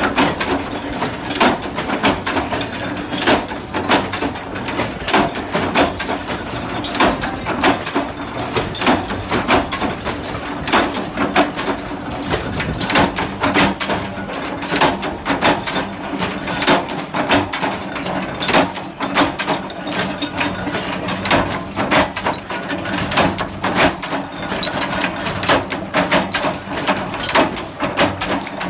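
Mechanical flywheel power press running with a steady hum while its ram stamps metal discs into bulb-holder parts, giving repeated sharp metallic clanks.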